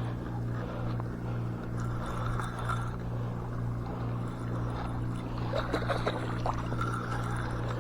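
A steady low motor hum, with a faint high whine coming and going and a few light clicks and scrapes past the middle.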